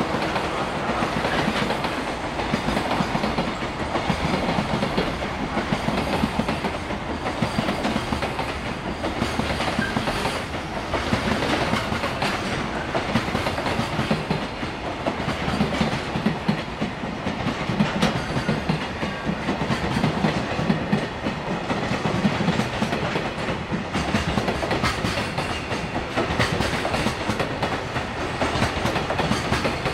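Loaded container flatcars of a freight train rolling past steadily, the wheels clattering over the rail joints in a running clickety-clack.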